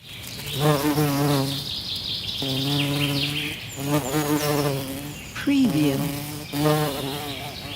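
Bumblebee buzzing close by in about five bouts of a second or so each, its hum wavering and bending in pitch as it moves. Birds chirp faintly in the background.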